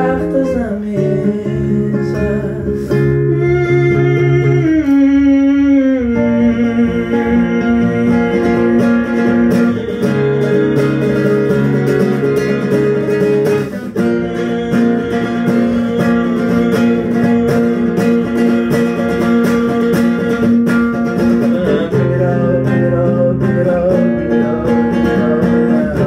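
A live song: acoustic guitar played under a man's voice singing long held notes, with a downward slide in pitch a few seconds in.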